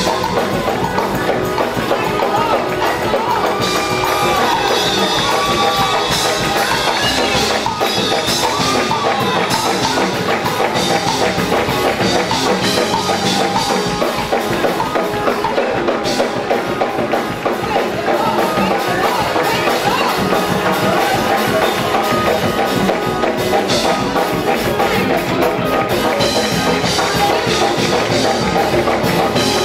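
Live gospel praise music: a choir and congregation singing over a steady beat of drums and percussion, with hands clapping along.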